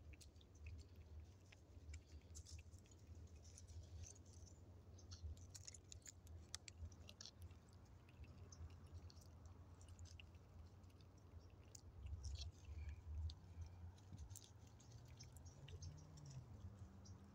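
Fox squirrel chewing a peanut held in its paws: faint, irregular crunching clicks over a low, steady rumble.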